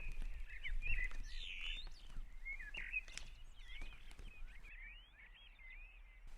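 Birds chirping and twittering: many short calls sliding up and down in pitch, over a faint low rumble.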